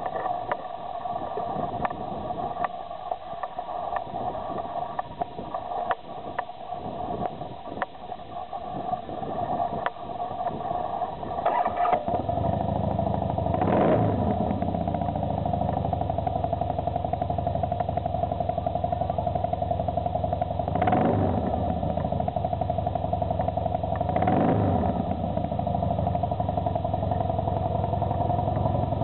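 Harley-Davidson V-twin motorcycle engine starting about twelve seconds in after some irregular clicking, then idling with three quick throttle blips, each rising and falling in pitch.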